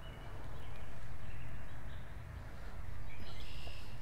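Wind rumbling on the microphone, swelling and fading twice. Birds call in the background with short high notes, more of them near the end.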